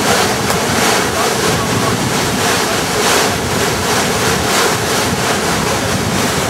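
Whitewater rushing loudly and steadily through a river rapid, heard close up as a continuous churning hiss with no pauses.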